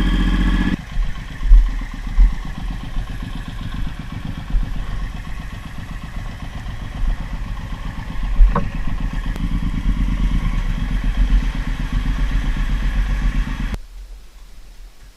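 Suzuki M109R's big V-twin engine running at a slow, uneven idle, its note dropping under a second in, with a single sharp click about eight and a half seconds in. The engine cuts out abruptly near the end.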